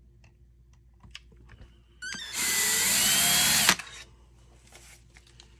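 Power drill with a Phillips bit running on the grip screw of an airsoft rifle for about a second and a half, its whine rising and then holding before it stops abruptly. A few faint handling clicks come before it.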